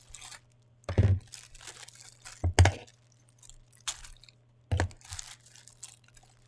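Packaging being handled and torn open, crinkling and tearing, with three heavy thumps about a second and a half apart and a sharp click in between.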